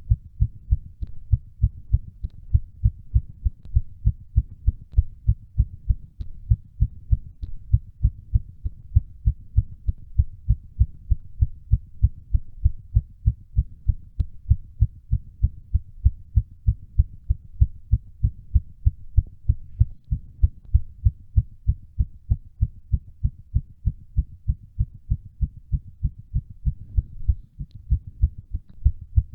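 A human heart beating fast and regularly, raised by exercise: a quick, even run of low dull thumps, several to the second.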